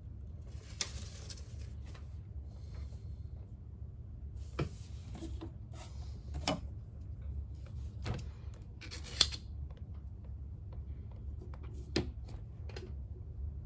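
Scattered light clicks, taps and rustles of small objects being handled, over a steady low hum; the sharpest tap comes a little after nine seconds in.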